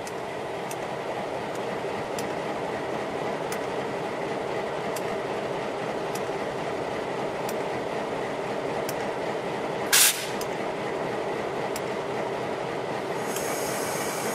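EMD MP15 switcher locomotive's diesel engine idling steadily close by, with faint ticks about every second and a half. A short, loud burst of air hiss comes about ten seconds in, and a fainter high hiss near the end.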